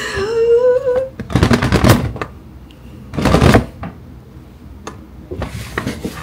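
Stiff paper shopping bag rustling and crinkling as it is handled, in two loud bursts a couple of seconds apart and softer rustles near the end. A short rising voice-like tone comes near the start.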